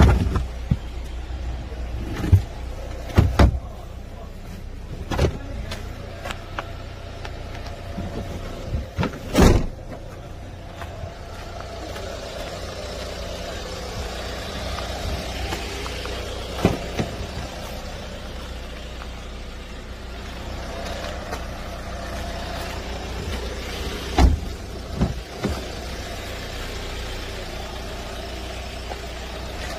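Hyundai Tucson ix turbo-diesel engine idling steadily, with about ten sharp clicks and knocks scattered over it, the loudest about a third of the way in.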